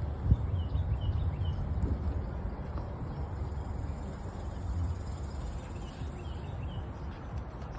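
Outdoor ambience dominated by a steady low rumble, with a single thump just after the start. A bird gives two short runs of quick high chirps, one near the start and one about six seconds in.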